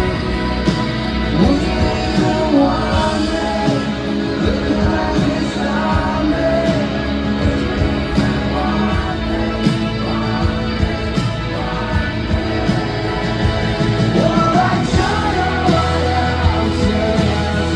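Rock band playing live at full volume: steady drums, electric guitars and a wavering melody line that carries the tune.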